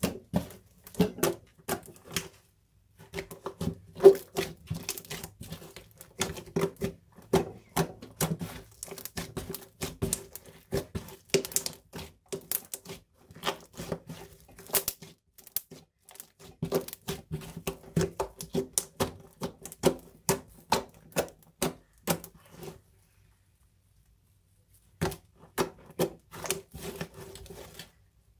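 Slime being squished and pressed by hand, giving fast runs of sticky clicks and pops. It stops for about two seconds near the end, then starts again.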